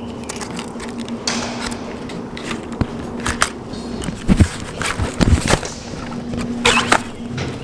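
Irregular footsteps scuffing and crunching over debris, louder from about halfway in, with a fly buzzing close by through the first half and again near the end.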